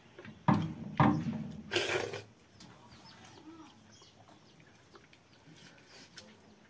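A hen clucking and squawking: three loud, abrupt calls in the first two seconds, then only faint background.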